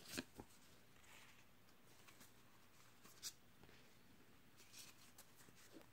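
Near silence with a few faint light taps and rustles of trading cards and packs being handled: two just after the start and one about three seconds in.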